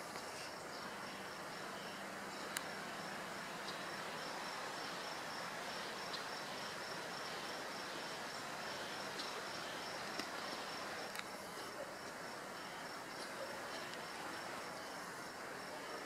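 Insect chirping, cricket-like: a steady run of evenly spaced high chirps over a constant outdoor hiss. A few faint sharp clicks come through.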